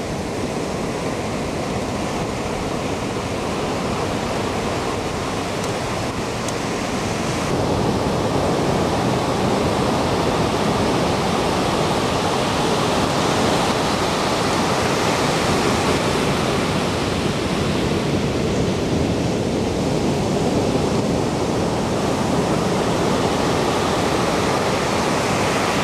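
Ocean surf breaking and washing in: a steady wash of noise that gets a little louder about seven and a half seconds in.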